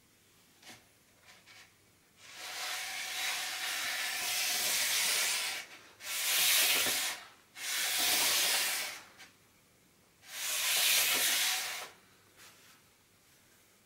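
A small clear plastic-cased circuit board, a DecaWave ranging node, slid across a desk surface: four long rubbing scrapes, the first about two seconds in and the last ending shortly before the end, with a few faint clicks before them.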